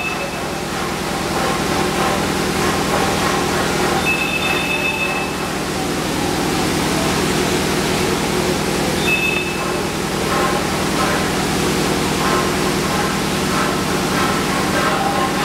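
Machinery running steadily: a low motor hum under a loud rushing hiss. A short high tone sounds twice, for about a second about four seconds in and briefly near nine seconds.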